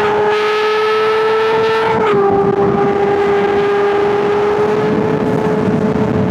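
Honda CBR600RR inline-four engine running at high revs with a high, steady note that climbs slightly, dips sharply about two seconds in, then holds steady.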